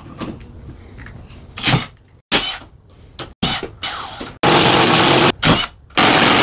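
Milwaukee M12 Fuel cordless driver running as it drives screws into a drywall sheet: a few short bursts early, then two longer, loud runs from about four and a half seconds and from about six seconds in, each breaking off abruptly.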